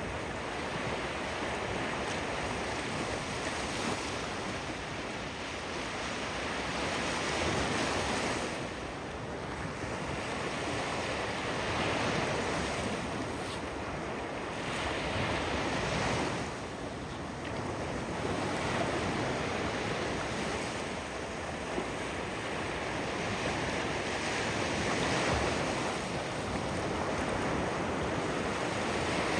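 Ocean surf washing ashore in slow, continuous swells every few seconds, with some wind on the microphone.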